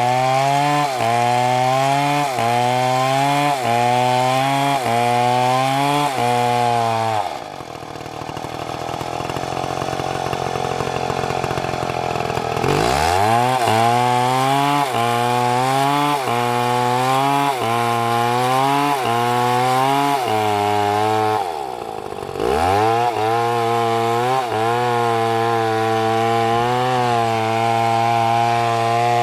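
MS720 two-stroke chainsaw running at full throttle in a cut, its pitch sagging and recovering about once a second as the bar is worked through the wood. About seven seconds in the engine note drops away, then revs back up near thirteen seconds; it dips and climbs again briefly around twenty-one seconds.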